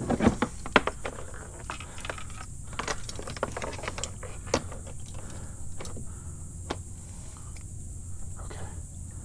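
A hooked snook being handled at the water's surface beside a kayak: scattered sharp clicks and knocks, with a cluster of them in the first second.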